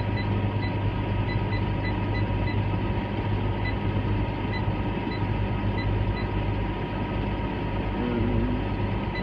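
John Deere 7930 tractor's six-cylinder diesel idling steadily, heard from inside the cab. Over it come a dozen or so short, high electronic beeps at uneven intervals, keys being pressed on an in-cab display during a log-in.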